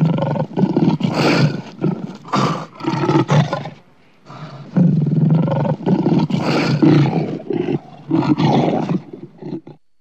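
Lion roaring in two long bouts, each made of several heavy pulses; the second bout starts about four seconds in.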